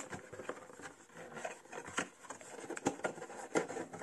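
A sealed plastic bag full of LEGO bricks being handled and set down: the plastic crinkles and loose bricks shift inside, heard as scattered soft clicks and rustles, with a few sharper clicks in the second half.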